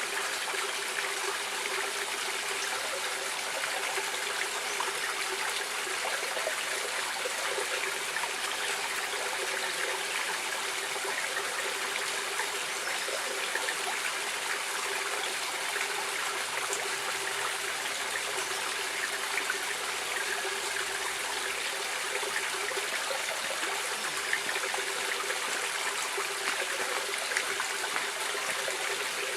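Stream water flowing and trickling steadily, an even rushing sound with no breaks.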